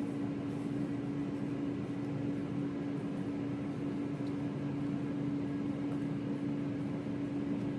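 Air fryer's fan running with a steady hum: one constant tone over an even rush of air, while a batch of green beans cooks.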